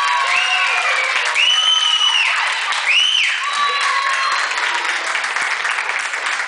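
Audience applauding, with several high-pitched cheers and whoops rising over the clapping.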